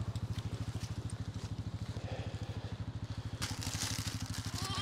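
Quad bike engine idling close by: a steady, evenly pulsing low throb. A louder hiss of noise comes in over it in the last second or so.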